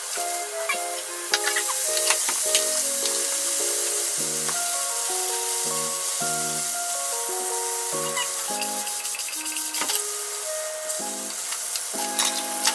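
Vegetables stir-frying in a frying pan: a steady sizzle with scattered clicks of the utensil against the pan as they are stirred, over background music of short notes.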